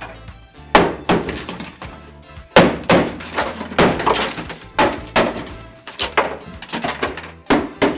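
Brittle, dry-ice-frozen sound-deadening mat being struck and cracked loose from a car's steel floor pan: about a dozen irregular sharp knocks and snaps with a short metallic ring.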